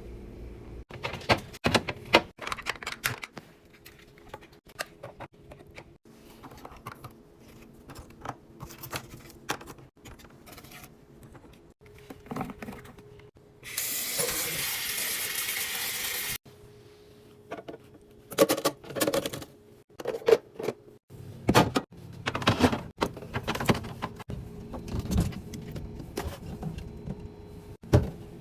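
Packages and containers being handled and set down, a run of clicks, clacks and knocks as items are stacked into place. About 14 seconds in a steady hiss lasts some three seconds, then the clatter goes on.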